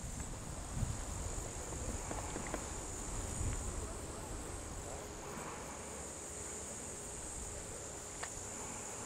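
Steady high-pitched chorus of insects in the trees, with a low rumble underneath during the first few seconds.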